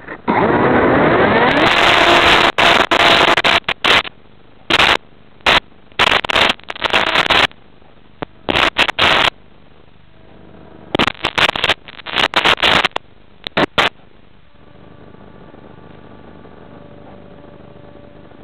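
Loud rushing wind and motor noise picked up by a small camera riding on a flying radio-controlled plane, cutting in and out abruptly in bursts. After about 14 seconds it settles to a quieter, steady noise with a faint whine.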